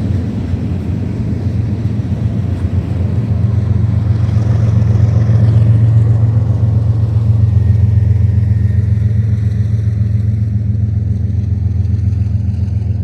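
Long freight train rolling past, a steady low rumble that swells to its loudest about halfway through and then eases slightly.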